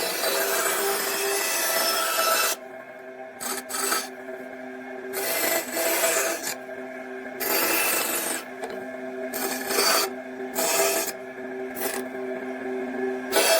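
Wood being abraded by hand: irregular scraping strokes, each from under a second to a couple of seconds long, with short pauses between them.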